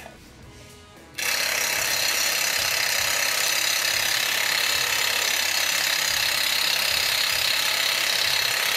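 Cordless impact wrench hammering continuously on a seized oxygen sensor threaded into an exhaust downpipe, starting about a second in. The sensor does not come loose.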